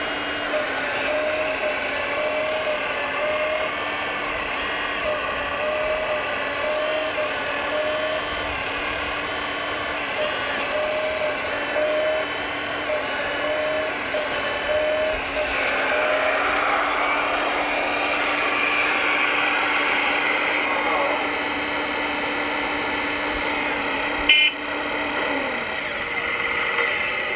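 Whine of the small electric motors of 1/14-scale RC construction machines at work, several steady tones that waver in pitch as the load changes, with a short sharp click near the end.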